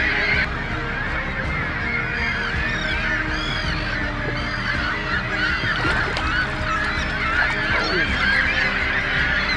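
A large flock of gulls calling continuously, many high cries overlapping into a steady clamour.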